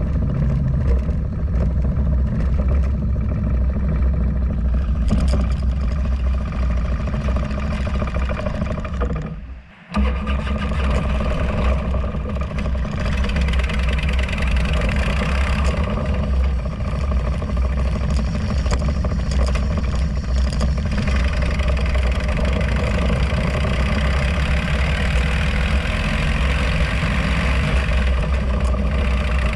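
Harley-Davidson Road Glide V-twin engine running under way, mixed with steady wind and road noise at the low front-wheel mount. The sound briefly drops away about nine and a half seconds in, then comes straight back.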